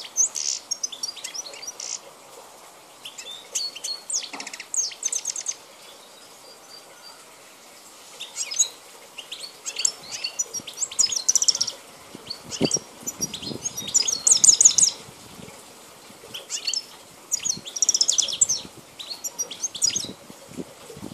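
A wild-caught European goldfinch of the Balkan race (Carduelis carduelis balcanica) singing. Its song comes in several bursts of fast, high twittering phrases with short pauses between them.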